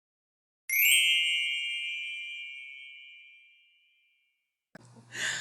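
A single bell-like chime, struck once, ringing clearly and fading away over about three seconds.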